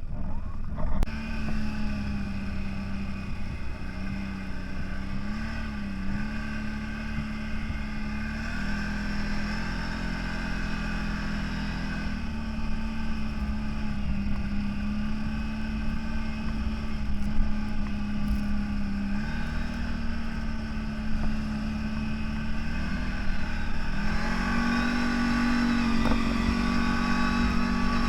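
CFMOTO 1000 off-road vehicle's engine running steadily while driving, its pitch stepping up and down a few times with the throttle, over a steady low rumble.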